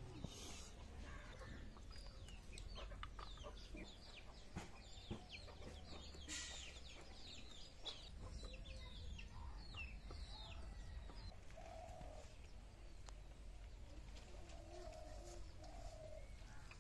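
Faint farmyard birdsong: many quick high chirps from small birds through the first part, and chickens clucking with a few short calls near the end.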